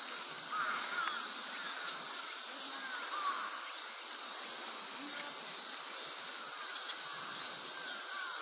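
Summer cicada chorus: a steady, high, hissing drone that does not let up.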